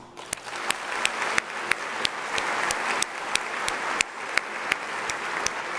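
An audience applauds steadily in an auditorium. Over the crowd sound, one person claps close to the microphone in even, distinct claps about three times a second.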